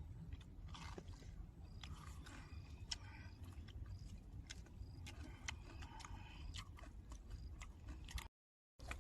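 Someone chewing and biting food, with many small wet clicks and scrapes. The sound drops out for about half a second near the end.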